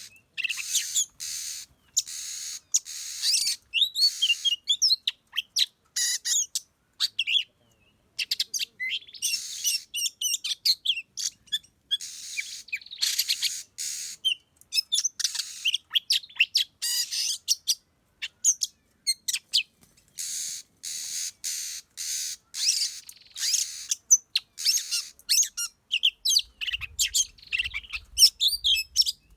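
Oriental magpie-robins singing: a fast run of chirps, whistled notes and quick pitch glides, coming in choppy stretches that break off abruptly.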